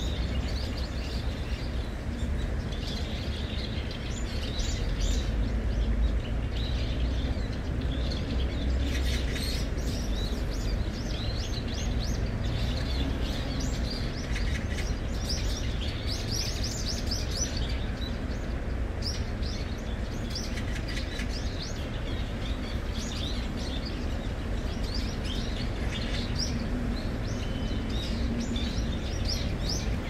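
Small birds chirping, many short high chirps in quick clusters throughout, over a steady low background rumble.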